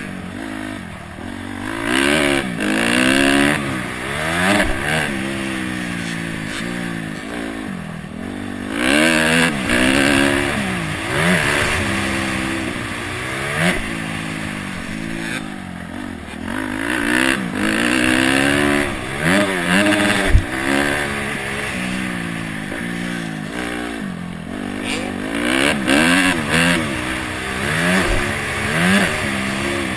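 Honda CRF250X's single-cylinder four-stroke engine being ridden hard, revving up and dropping off over and over as the throttle is opened and closed. A single sharp knock comes about twenty seconds in.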